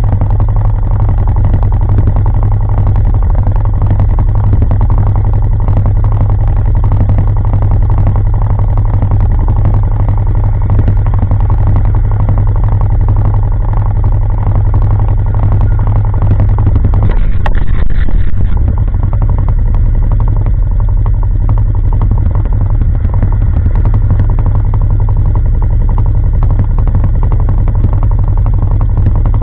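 ATV engine idling steadily, close to the microphone, with a brief louder surge a little past the middle.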